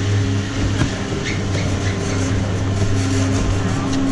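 Chairlift station machinery humming steadily at a low pitch as a chair comes around to load, with a few scattered clicks and knocks of the chair and skis.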